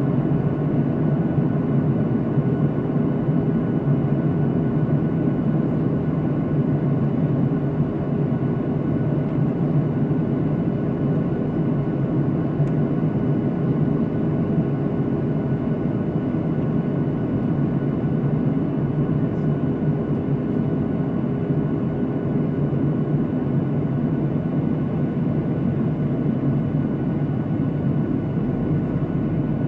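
Steady drone inside a jet airliner's cabin at cruise: an even, low rush of engine and airflow noise with a few faint humming tones over it.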